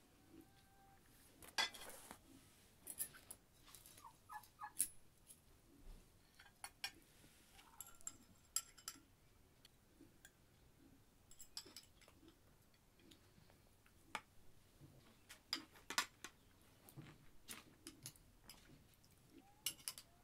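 Metal spoon and fork clinking and tapping against china plates and a metal pot, in scattered light clicks every second or so.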